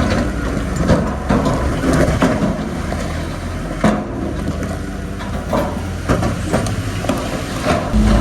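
Diesel bulldozer working, its engine running steadily under irregular clanks and crunches of rock and steel tracks.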